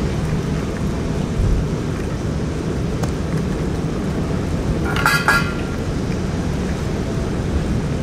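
Steady low rumble of typhoon wind buffeting the microphone, with a low bump about a second and a half in. A stray cat gives a short cry about five seconds in.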